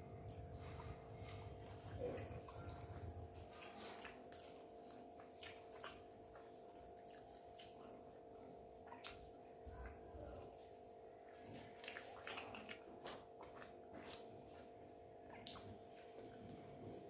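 Close-miked eating: soft wet chewing with scattered small mouth clicks and smacks, over a faint steady hum.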